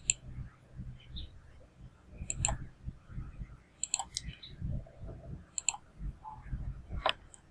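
Computer mouse clicking about half a dozen times, some clicks in quick pairs, over faint room noise.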